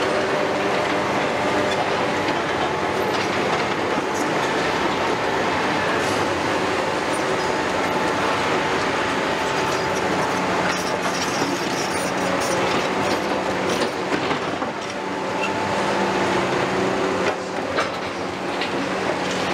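Tracked demolition excavators running: diesel engines and hydraulics drone steadily with a whine, while a CAT 320F's steel crawler tracks clank and squeal as it drives past.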